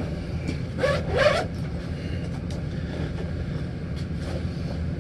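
Zipper of a padded guitar gig bag being pulled open, one strong rising zip stroke about a second in, then a few faint ticks and rustles over a steady low hum.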